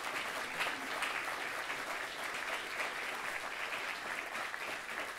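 Audience applauding: many hands clapping together, held steady.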